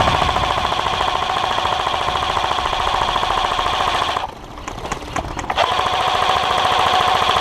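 Airsoft electric gun firing two long full-auto bursts, a fast buzzing rattle. The first burst lasts about four seconds, then after a short pause a second runs for about two and a half seconds.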